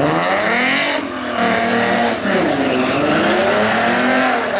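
A car engine revving hard, its pitch rising and falling about three times, over a hiss of spinning tyres, as in a street donut or burnout.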